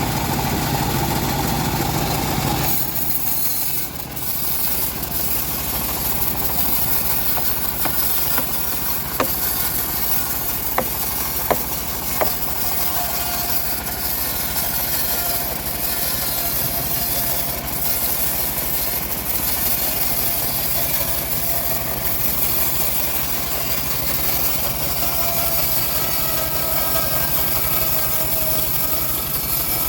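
Engine-driven homemade bandsaw mill running steadily. About three seconds in, the sound changes from a heavy engine drone to a steady high hiss over the engine, with a few sharp clicks a little later.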